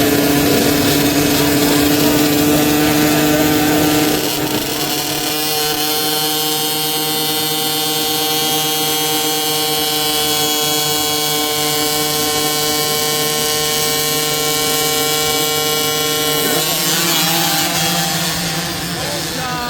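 Small dirt bike engines buzzing at high, steady revs. The pitch holds level for long stretches, drops about four seconds in and shifts again near the end.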